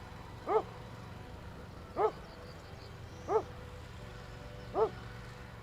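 A dog barking four times at an even pace, about one bark every second and a half, over a steady low hum.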